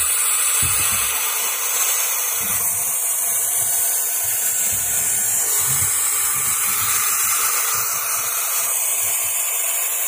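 Several barn owl chicks hissing together, a loud, steady, breathy hiss with no break, the snoring hiss call of young barn owls. Low, uneven rumbles sound beneath it.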